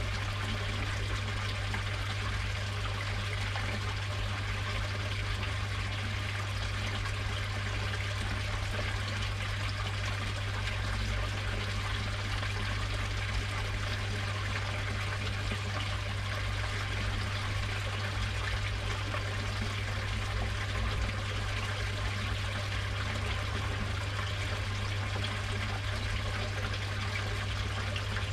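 Water trickling and pouring steadily into a koi pond, with a steady low hum underneath.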